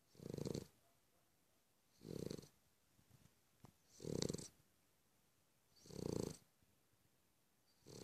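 A sleeping Cavalier King Charles Spaniel snoring: short, even snores about every two seconds, each about half a second long.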